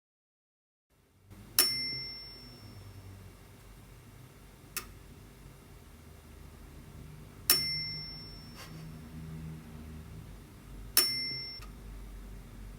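A small bell-like metallic ding, struck three times a few seconds apart, each ringing briefly at two clear pitches, over a low steady hum; two fainter clicks fall between the dings.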